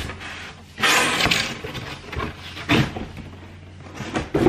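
Cardboard box being opened by hand: flaps and packing rustling and scraping, with a loud rustle about a second in and a couple of short knocks later.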